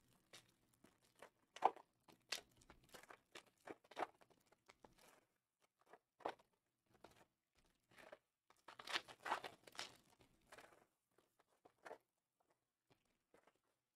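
Foil wrappers of Panini Prizm basketball card packs crinkling and tearing faintly as the packs are handled and opened by hand, in two bunches of crackles, a couple of seconds in and again about nine seconds in.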